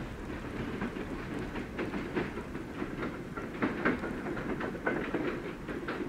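A train running out of view: a steady low rumble with irregular clicks and clatters of wheels on the rails.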